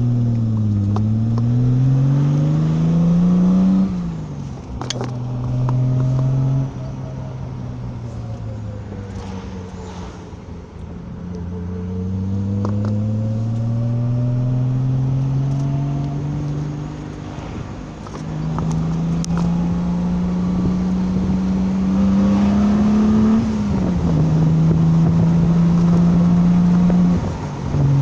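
Carburetted straight-six car engine under way on a test drive, its note climbing as it pulls and dropping sharply at gear changes, with steadier cruising stretches in between. It has new carburettor needles fitted to sort a misfire.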